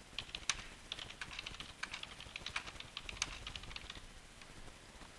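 Computer keyboard typing: a quick run of key clicks that thins out after about four seconds.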